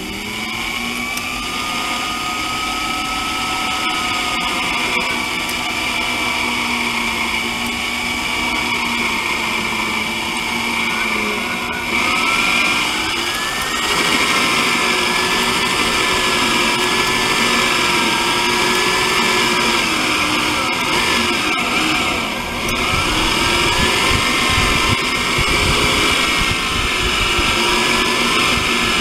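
Electric drill running continuously while boring up through a vehicle's sheet-metal body, its motor whine sagging and recovering in pitch as pressure on the bit changes. It gets louder about twelve seconds in and eases off briefly a little over twenty seconds in.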